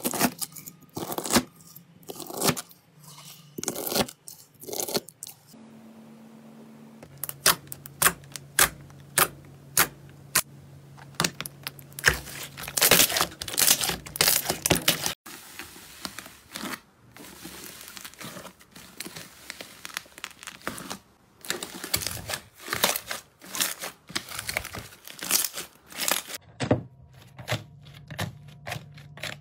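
Close-up slime handling in several short clips. A knife cuts through bead-filled slime, a hand presses fluffy slime, and hands peel crisp layers of slime apart. Together they make a dense run of sharp crackles, pops and tearing sounds, changing in character abruptly a few times.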